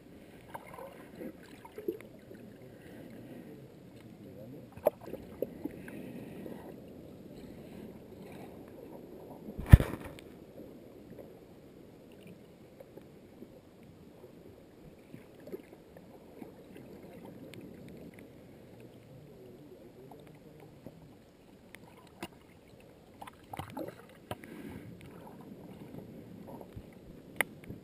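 Underwater ambience heard muffled through a camera's waterproof housing: a low, steady wash of moving water with scattered sharp clicks and ticks. There is one loud knock about ten seconds in and a cluster of clicks near the end.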